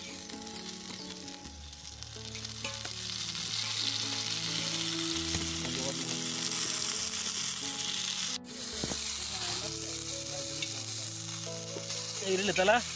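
Tandoori chicken leg sizzling steadily as it fries in oil on a blackened griddle, the sizzle growing louder a few seconds in. Near the end, a brief, louder scrape as tongs work the chicken on the pan.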